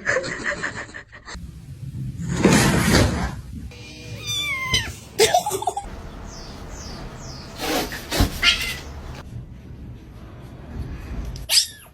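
Cats meowing: several short, gliding meows spread over a few quick cuts, with a loud noisy burst about two and a half seconds in.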